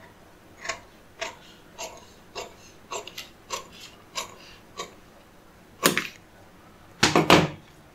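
Large tailor's scissors cutting through pink pattern paper: a steady run of crisp snips, a little under two a second, then a couple of louder paper crackles near the end.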